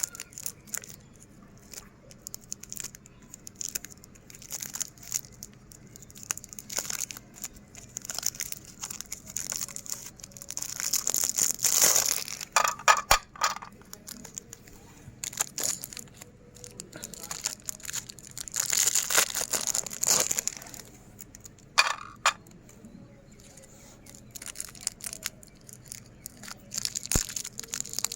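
Hard-candy lollipops being crushed in a meat grinder: irregular cracking and crunching, with two louder, denser stretches of grinding about 11 and 19 seconds in.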